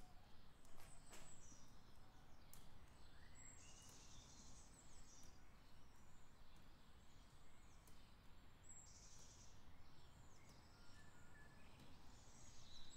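Quiet outdoor ambience with faint birds chirping: short high calls and brief trills every second or two over a low, steady background noise.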